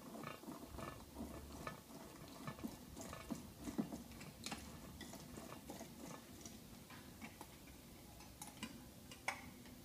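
A lemon being pressed and twisted on a hand citrus juicer, giving faint, irregular scraping and small clicks and knocks.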